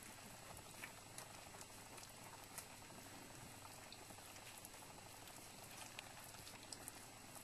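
Faint wet licking and smacking from a flat-coated retriever mother cleaning her newborn puppies: a scattering of small irregular clicks over a steady low hiss.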